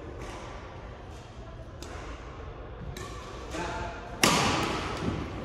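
Badminton rally in a large, echoing hall: rackets striking the shuttlecock as sharp cracks every second or so. About four seconds in comes a much louder hit or thud that rings on in the hall.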